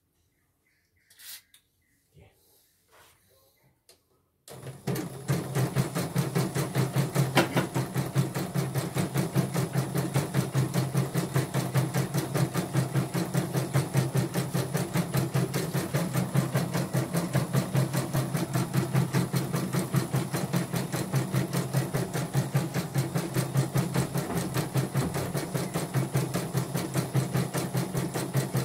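A short hiss of aerosol lubricant spray about a second in, then a portable CNY embroidery machine, opened up with its covers off, starts about four and a half seconds in and runs steadily, stitching with a fast, even rhythm: a test run after oiling.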